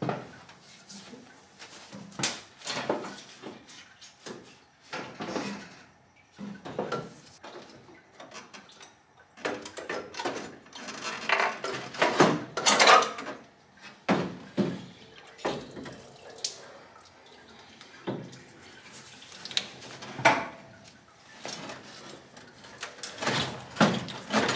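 Irregular metallic clunks, knocks and scrapes of a 1957 Chevy's old radiator being worked loose and lifted up out of the engine bay, bumping against the surrounding sheet metal.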